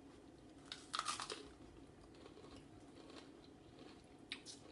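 Crunching bite into a cream-cheese-stuffed pepper topped with crushed Takis chips, a short crackly burst about a second in, followed by faint chewing and a couple of small clicks near the end.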